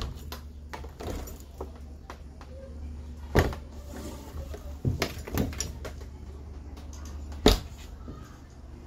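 Stainless-steel freezer lids knocking and clanking as they are handled: a few sharp knocks, the loudest about three and a half and seven and a half seconds in, over a steady low rumble.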